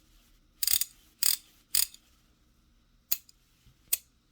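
3/8-inch None Better socket ratchet worked back and forth by hand, its pawl clicking: three short spells of quick clicks in the first two seconds, then two single clicks. Freshly cleaned and reassembled, the mechanism is working properly.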